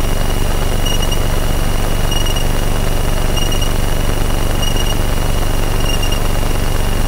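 Van's RV-7A's piston engine idling steadily while taxiing, heard as loud cabin noise, with a short high electronic warning beep repeating about once a second.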